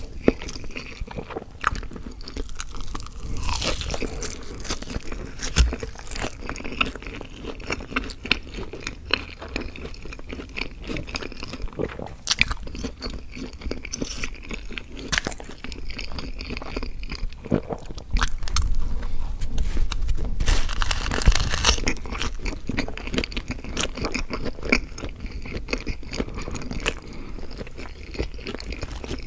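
Close-miked eating sounds: a person chewing and crunching food, with many sharp little mouth clicks. There is a louder, denser stretch about twenty seconds in.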